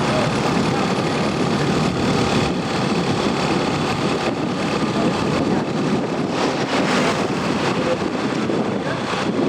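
Steady road traffic noise, with vehicle engines running and idling.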